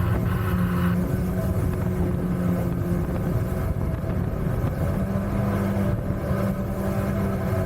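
Mini jet boat's engine running steadily under way, a continuous low drone whose pitch shifts slightly partway through.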